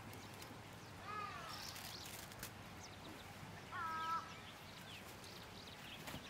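A domestic hen calls twice: a short falling note about a second in, then a louder, steadier note of about half a second at around four seconds. Steady outdoor background noise runs underneath.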